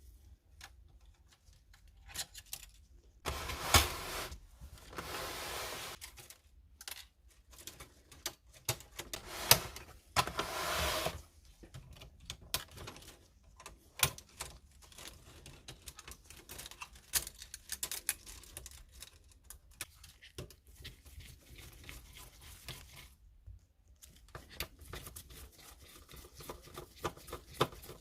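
Plastic and metal parts of a Canon printer clicking and clattering as it is taken apart by hand, with two longer scraping stretches, a few seconds in and about ten seconds in.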